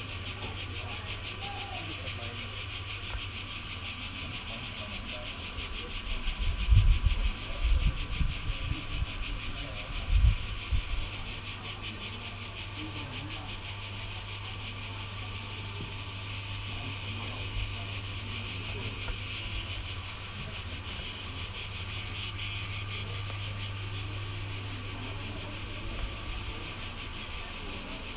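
Cicadas buzzing in a steady, dense high chorus with a fast pulse. A few low thumps come about seven to ten seconds in.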